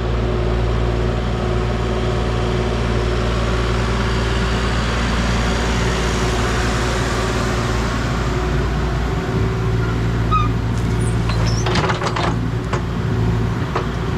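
An engine running steadily, with a few knocks and scrapes about eleven to thirteen seconds in.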